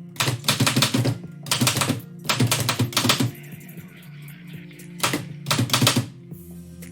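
1918 Oliver typewriter being typed on in quick runs of sharp keystrokes, with a pause of about two seconds before a last run. Music plays underneath.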